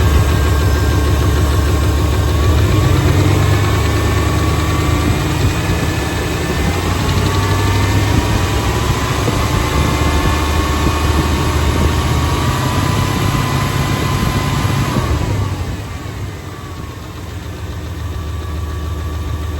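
GM 5.7 L Vortec 350 small-block V8 idling, with a rapid ticking knock over the running. It is an intermittent noise at idle that the owner cannot pin down: piston slap, lifter tick or rod knock. The sound gets somewhat quieter about three-quarters of the way in.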